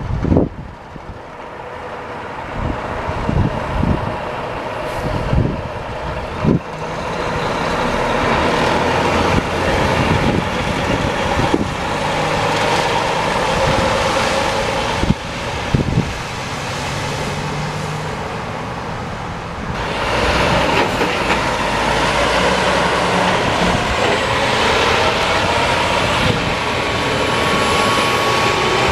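Heavy semi trucks passing on a road: continuous engine and tyre noise with scattered thumps, growing louder and changing about twenty seconds in.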